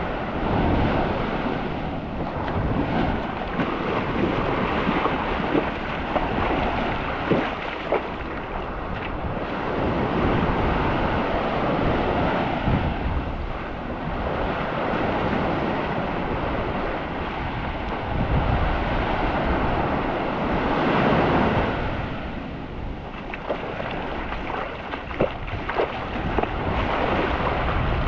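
Sea surf washing onto the beach in repeated swells, with wind buffeting the microphone.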